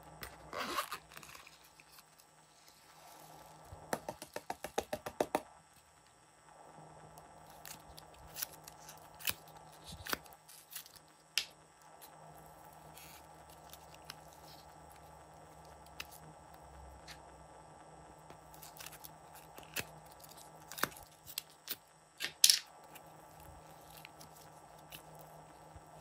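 Hands handling small silicone and foam slime toys: a quick run of about a dozen clicks a few seconds in, then scattered light taps, crinkles and clicks, the sharpest one near the end.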